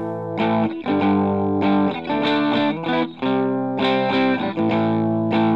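Outro music: a distorted electric guitar playing held chords, a new chord every half second or so.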